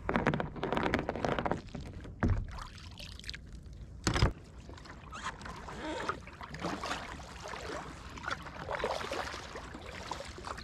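Gear rattling as it is handled, two sharp knocks, then kayak paddle strokes swishing and splashing through the water about once a second.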